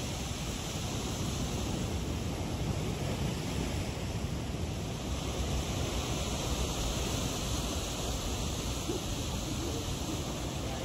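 Steady wash of ocean surf against a rocky shoreline, mixed with wind rumbling on the microphone.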